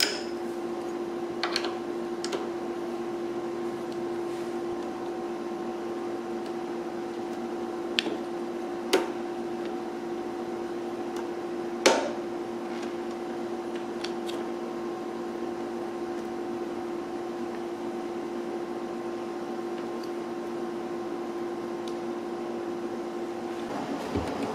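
A steady background hum with a few light metallic clicks and taps, as a hex key, the planer's gearbox plate and its roller chain are handled. The loudest click comes about halfway through, and the hum stops just before the end.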